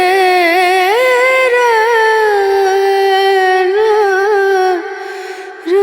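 A voice singing a slow melody in a Hindi song, with a wavering start and then long held notes, breaking off briefly near the end before the next phrase begins.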